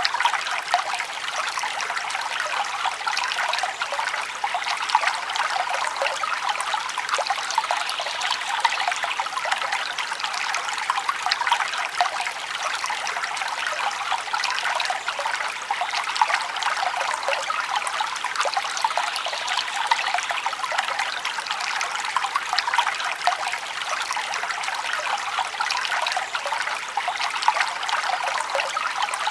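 Forest stream flowing steadily over rocks, a continuous trickling and splashing of running water.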